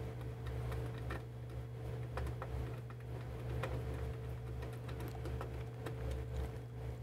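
Small screwdriver turning a screw into the plastic housing of a blood pressure monitor, making light, irregular clicks and ticks, over a steady low hum.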